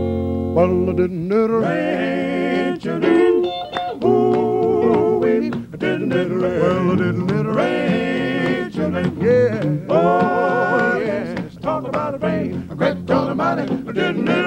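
Male gospel vocal group singing in close harmony, with held chords and wavering, sliding notes, accompanied by guitar; a long held note comes about ten seconds in.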